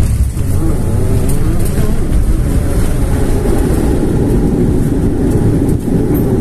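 Turboprop airliner on its landing rollout, heard from inside the cabin: a loud, steady rumble of the engines, propellers and wheels on the runway.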